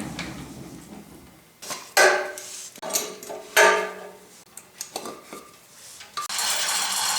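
Heavy metal clanks ring out as the planer's cast iron table and hoist rigging are handled, three loud strikes about two, three and three and a half seconds in, with lighter knocks between. About six seconds in a steady mechanical noise starts and keeps going.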